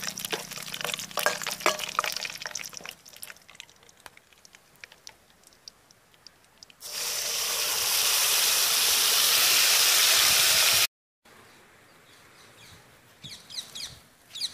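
A steel spoon clinking and scraping in an aluminium cooking pot, then water poured from a steel vessel into the pot: a loud, steady gushing rush for about four seconds that stops abruptly.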